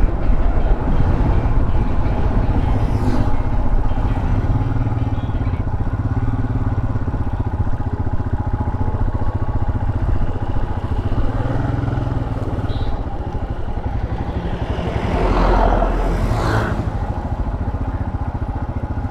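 Royal Enfield Himalayan 411's single-cylinder engine running steadily while the bike is ridden on the road, with a brief louder swell near the end.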